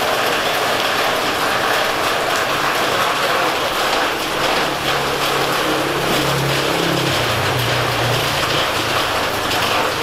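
Steady roadside traffic noise, with a low engine hum passing through about halfway in.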